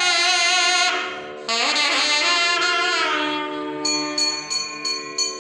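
Instrumental interlude of devotional music: a wind instrument plays a melody with bending notes, breaking off about a second in and resuming. From about four seconds in, a small bell is rung steadily, about three strokes a second.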